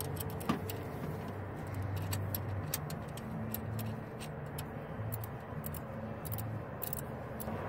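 Small ratcheting wrench clicking in short irregular runs as it backs out a 15 mm idler pulley bolt, over a steady low hum.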